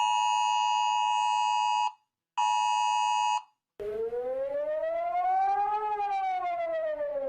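An emergency-alert attention tone, a steady, harsh two-note beep near 1 kHz, sounds in two blasts, one of about two seconds and one of about one second. Then a siren starts and slowly winds up in pitch and back down.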